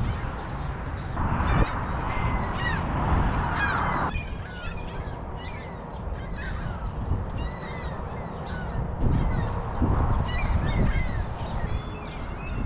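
Many birds chirping and calling over one another, over a steady low rumble. About a second in, a louder rushing noise rises over them and stops some three seconds later.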